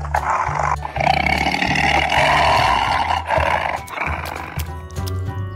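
Tiger roaring in a long, rough roar over background music with a steady bass line. The roar fades out about four seconds in, leaving the music alone.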